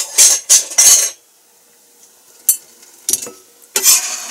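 A quick run of crisp crunching strokes, then quiet, then a few clicks of a kitchen knife on a plastic cutting board. Near the end comes a scrape as the blade gathers finely shredded cabbage across the board.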